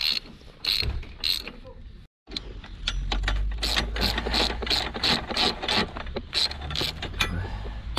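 Socket ratchet clicking in quick runs as it turns bolts on a motorcycle's frame. It drops out briefly about two seconds in, then carries on over a low steady rumble.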